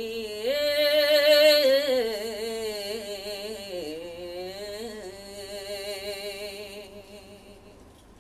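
A man singing one long drawn-out melismatic phrase, holding wavering notes with vibrato. The pitch steps up about half a second in, then sinks in stages, and the voice fades away near the end.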